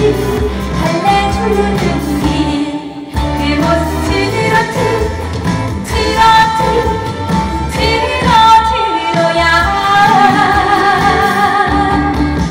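A woman singing a Korean trot song into a microphone over loud backing music. Near the end she holds a long note with vibrato.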